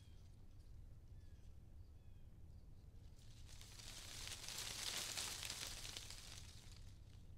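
Faint outdoor ambience. A soft high hiss swells up and fades away in the middle, and a few faint short chirps come in the first couple of seconds.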